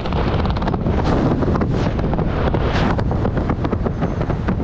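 Strong wind buffeting the microphone, a steady rush with rapid gusty flutter, as the skydiver flies under an open parachute canopy.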